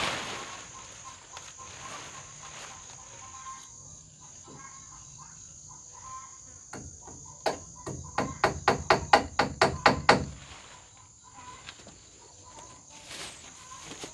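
Crickets chirring steadily. About seven seconds in comes a quick run of a dozen or so sharp knocks, about five a second, lasting some three seconds.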